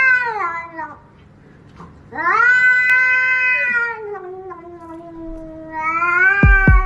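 Domestic cat yowling in long, drawn-out calls. One falls away at the start, a long one begins about two seconds in and sinks lower as it trails on, and a rising one comes near the end. Two low thumps also come near the end.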